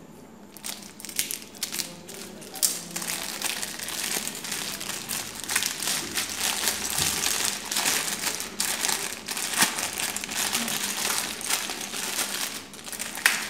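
Clear plastic bag crinkling and crackling in an irregular run as hands unwrap a small metal tripod stand from it.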